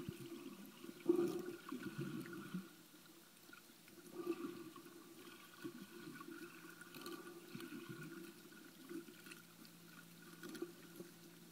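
Muffled underwater water noise, faint sloshing and gurgling with a few louder swells early on and scattered faint clicks. A faint steady low hum comes in about two-thirds of the way through.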